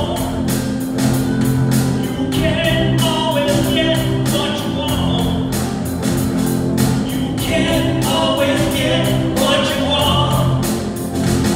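Mixed church choir singing with live band accompaniment over a steady beat.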